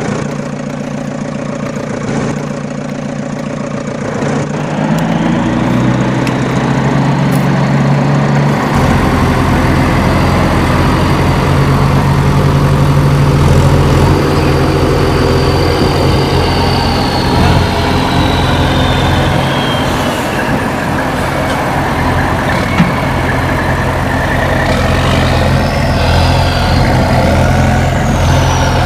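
Heavy diesel engine running steadily, with a deeper engine note joining about nine seconds in. A high whine falls in pitch midway, and similar whines rise and fall near the end.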